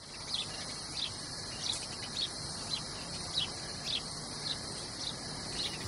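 Nature ambience: a steady high insect hum with short bird chirps repeating about twice a second.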